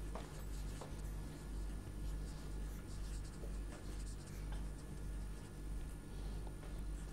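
Faint scratching of writing by hand, in short irregular strokes, over a steady low room hum.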